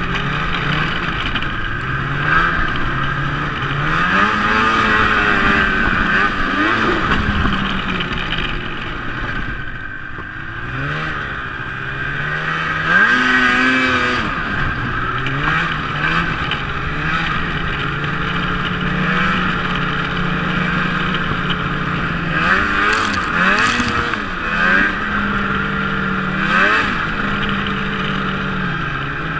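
Snowmobile engine running under way. Its pitch rises and falls again and again as the throttle is opened and eased, dropping back about a third of the way in and then climbing sharply a few seconds later. A steady rushing noise runs under it.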